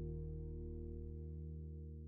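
Background music ending on a held chord that slowly fades out.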